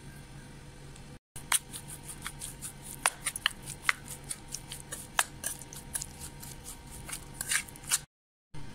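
Raw chicken pieces being mixed with dry spice masala by hand in a steel bowl: a quick, irregular run of short wet clicks and squelches over a faint steady hum.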